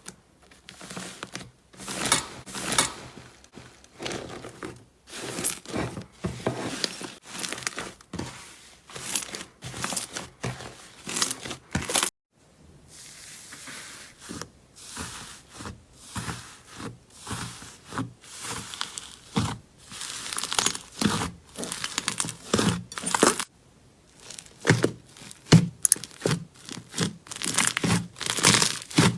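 Slime being handled by hand: stretched, squeezed and pulled apart, giving irregular bursts of crackling and tearing sounds. The sound cuts off suddenly about twelve seconds in, then resumes with a different texture.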